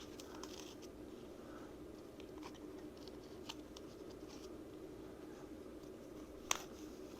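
Faint rustling and light clicks of packaging foam and plastic being handled, with one sharper click about six and a half seconds in, over a steady low hum.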